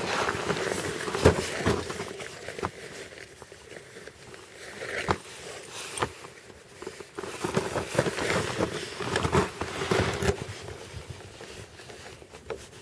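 Irregular metallic clicks, scraping and rattling of a key being worked in a stiff small lock with gloved hands, mixed with rustling; the lock is hard to open because of corrosion and rust.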